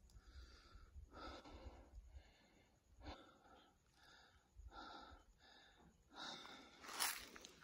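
Faint, heavy breathing of a person close to the microphone, about one breath a second, from the effort of climbing. A louder rustle comes near the end.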